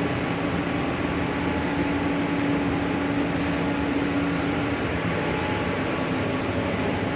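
Laminating machine running with a steady mechanical hum, fans and motors together, with a low held tone that fades about five seconds in.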